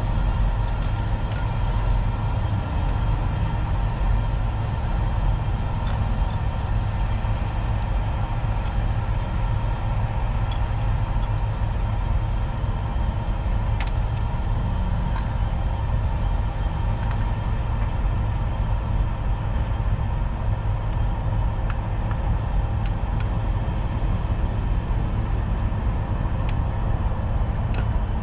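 Heavy truck's diesel engine idling steadily, with a few faint clicks from time to time.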